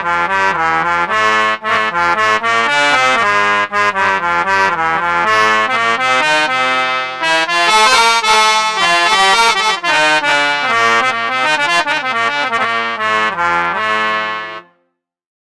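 Roland Fantom 06 keyboard playing a quick melody over held chords in a sound demo, stopping abruptly near the end.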